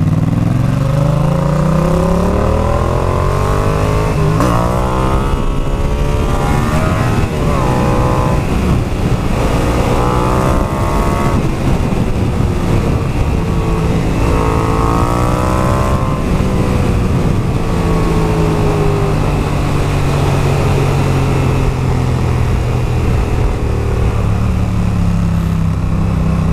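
Yamaha MT-07's parallel-twin engine through a Zard full exhaust system, pulling through the gears several times, each rise in pitch falling back at a shift. It runs more steadily for the last third.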